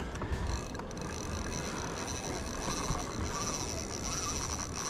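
Steady low rumble of wind and water around a small boat on open water. A thin, steady high-pitched whine comes in about half a second in, with a few light clicks near the start.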